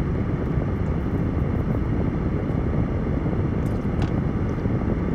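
Steady low rumble of background noise inside a car's cabin. A few faint clicks come about four seconds in as a drink can is sipped.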